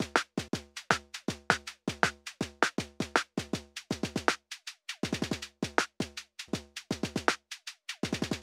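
Electronic music with a steady beat of short, sharp percussive hits, each dropping quickly in pitch; a quicker run of hits about five seconds in.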